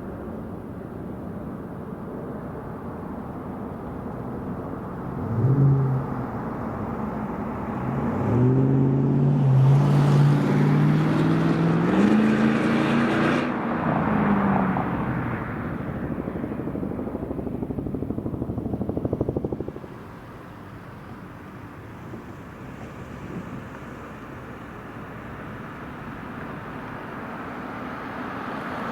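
An engine running outdoors over a steady background rush, its note rising in pitch and growing loud between about 8 and 15 seconds in. The sound drops away sharply at about 20 seconds, leaving quieter background noise.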